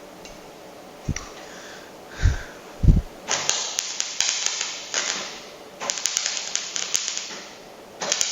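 A few knocks and thuds as a metal workpiece is handled, then a MIG welding arc crackling and hissing with spatter clicks. The arc runs in repeated bursts of about one and a half to two seconds, starting about three seconds in.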